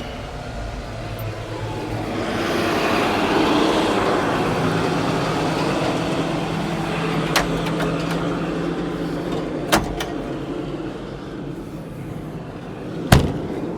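Cat 325 excavator's diesel engine running steadily, with a hiss that swells a couple of seconds in and slowly eases off. Three sharp clicks sound in the second half, the last, near the end, the loudest.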